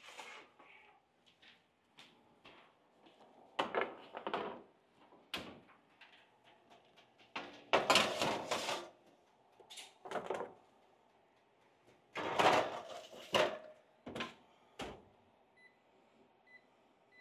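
Oven door opening, metal sheet pans slid and set onto the oven racks, and the door shut: a series of clattering knocks and scrapes, loudest about halfway through and again a few seconds before the end.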